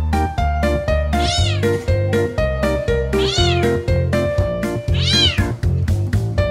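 Bengal kitten meowing three times, about two seconds apart, each call rising and then falling in pitch: agitated, demanding food before a meal. Background music with a steady beat plays under the calls.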